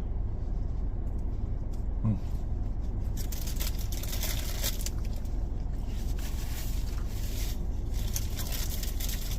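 Steady hum of a car running, heard from inside, with intermittent rustling and crackling handling noises.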